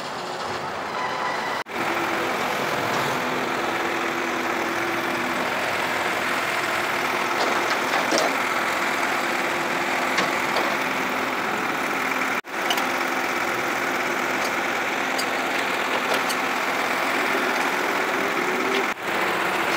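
Tow truck engine idling steadily while its tilted flatbed is being loaded, with a few light clinks, broken by three brief dropouts.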